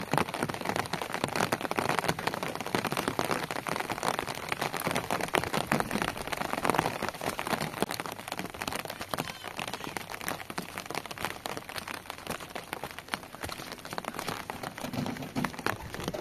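Steady rain falling, a dense spread of small drop impacts close by.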